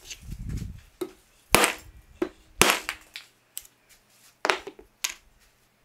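Heavy wooden mallet whacking a glued-up wood block clamped to a bench edge: two hard, sharp cracks about a second apart, with lighter knocks before and after. The blows break the block off, the wood failing rather than the Titebond II glue joint.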